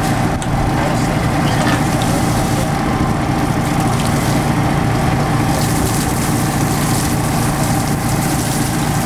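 Engine-driven water pump on a small ocean gold dredge running steadily at constant speed, a continuous mechanical hum.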